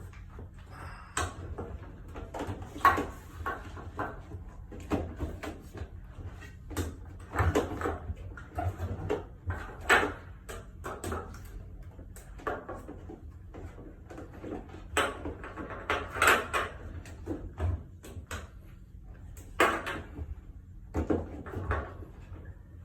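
Irregular knocks, clicks and rattles of hands and tools working on a front-load washer, over a steady low hum.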